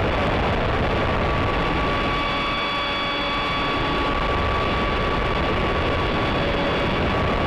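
Electric ducted fan of an RC F/A-18 jet model running with a steady high whine, several thin tones over a continuous rush of noise.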